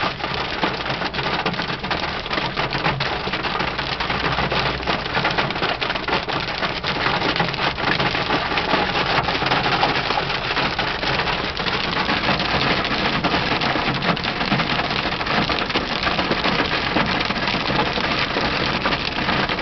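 Hail and rain hitting a car's roof and windshield, heard from inside the cabin: a dense, continuous clatter of small impacts.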